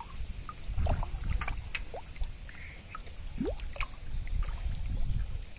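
Water splashing and dripping as live carp are handled and move about in water: scattered small splashes and drips, two of them with a short rising plink, over a low rumble.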